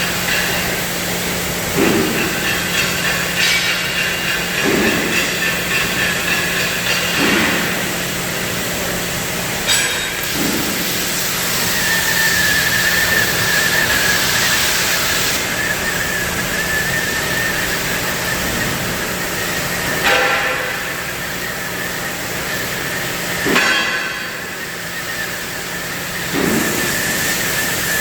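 CNC cutting machine's torch hissing steadily as it cuts. Under it runs a low hum that stops about halfway, and a few dull knocks come at intervals.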